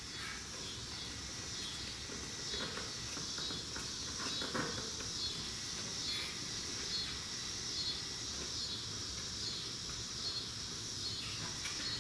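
Insects chirping in a steady, evenly pulsing chorus, with a few faint knocks and scrapes of a plastic fan shroud being pushed against a radiator.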